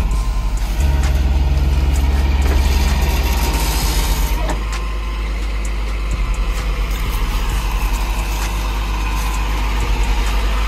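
Flatbed tow truck's engine idling, a steady low rumble that drops a little about four and a half seconds in, with scattered light clicks over it.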